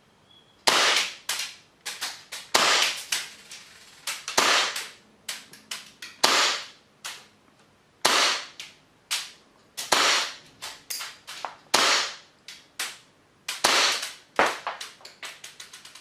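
Tokyo Marui Hi-Capa 5.1 Gold Match gas blowback airsoft pistol firing about eight single semi-automatic shots on green gas, one every second or two, each a sharp report with a short tail. The first shot comes about half a second in.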